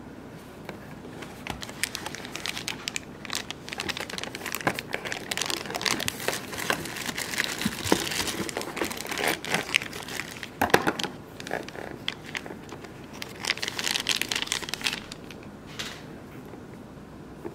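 Thin clear plastic packaging bags crinkling and rustling in irregular bursts as a nail drill handpiece and its coiled cord are unwrapped. The crinkling starts about a second in, eases briefly a little past the middle, and stops a second or so before the end.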